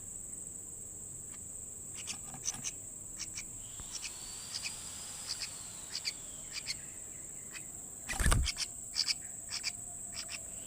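Steady high-pitched drone of insects, with short chirps repeated irregularly through it and a single loud thump about eight seconds in.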